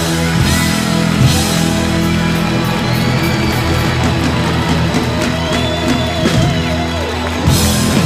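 Live hard-rock band playing loudly: distorted electric guitar over a drum kit and bass, building to a big closing hit near the end.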